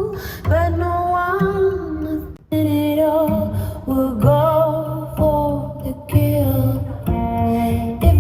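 A song with a female singer holding long notes with vibrato over guitar and bass, played back through a Fender portable Bluetooth speaker during a sound test. The sound drops out briefly about two and a half seconds in.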